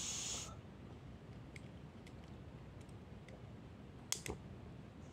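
Short hiss from a portable butane camping stove that cuts off about half a second in, followed by light metallic clicks of the burner being handled and two sharper clicks about four seconds in.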